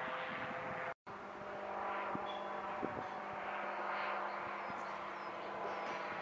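Ultralight aircraft's propeller engine droning steadily overhead, with the sound cutting out for a moment about a second in.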